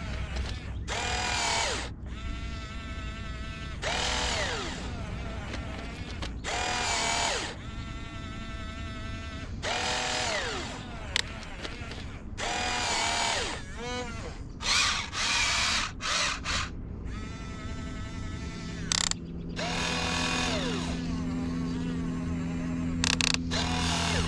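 Huina 1592 RC excavator's electric arm motors whirring through metal gears in a string of short bursts, each rising in pitch as it spins up and falling as it stops, as the boom, arm and bucket are worked. A steady low hum joins in during the second half.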